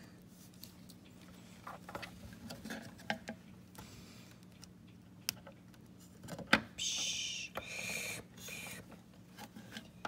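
Quiet handling noise of plastic toys being moved by hand: scattered light clicks and taps, one sharper click about six and a half seconds in, followed by a second of rustling and another brief rustle.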